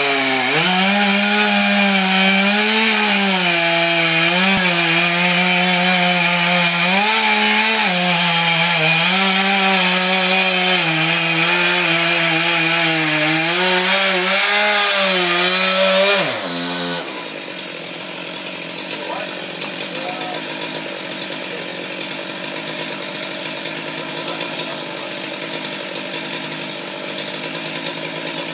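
Two-stroke chainsaw at full throttle cutting into a tree trunk, its engine pitch dipping and recovering as the chain bites. About 16 seconds in the throttle is released and the engine winds down, leaving a quieter steady noise.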